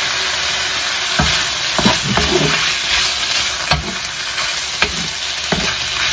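Chicken strips sizzling steadily in hot oil in a wok, stir-fried with a wooden spoon. From about a second in, the spoon scrapes and knocks against the pan about once a second.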